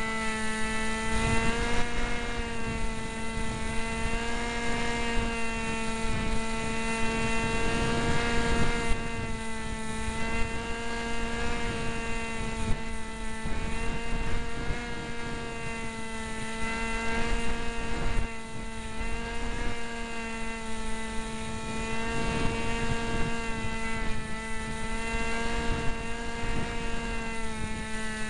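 Onboard sound of a Cox SkyCruiser's small electric motor and propeller running steadily near full power, a constant whine that wavers slightly in pitch. Wind rushes and buffets over the microphone underneath.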